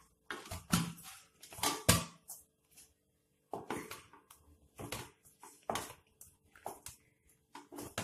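Stiff maida dough being kneaded by hand in a stainless steel bowl: irregular soft slaps and presses of the dough against the bowl, about one or two a second, with a short pause about three seconds in.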